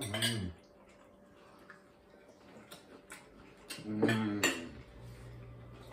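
Forks and knives tapping and clinking lightly on ceramic dinner plates, a few scattered ticks, with a short voice sound right at the start and another about four seconds in.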